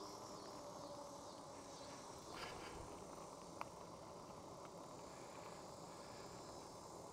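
Faint, steady wind and road noise from a moving e-bike, with one sharp click a little over three and a half seconds in.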